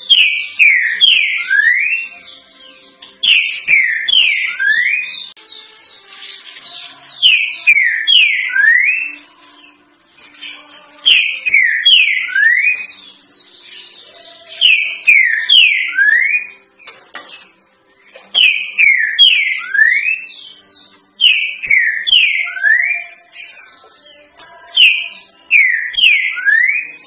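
Green-winged saltator (trinca-ferro) singing its three-note 'boi' song type, the song breeders play to teach young birds. Each phrase is three loud sliding whistled notes, and the phrase repeats eight times, about every three and a half to four seconds. Thin, high chirps come with each phrase.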